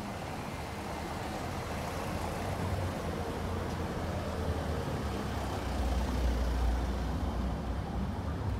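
Cars driving slowly past on a cobblestone street, engine and tyre noise building as the nearest one passes, loudest about six to seven seconds in.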